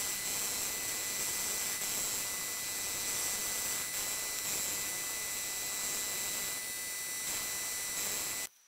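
Milling machine running, its end mill cutting a pocket in a metal workpiece: a steady hiss with a high whine. It stops abruptly near the end.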